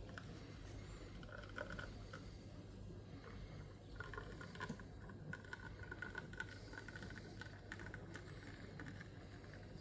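Faint patter and trickle of espresso running from a La Pavoni Europiccola lever machine's portafilter into a cup while the lever holds about 9 bar, over a low steady hum.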